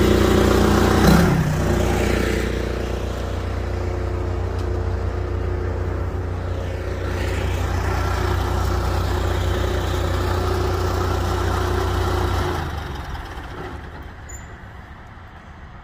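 John Deere 650J crawler dozer's diesel engine running, dropping to a lower, steadier idle about a second in. About twelve seconds in the engine shuts off and runs down, leaving quiet background.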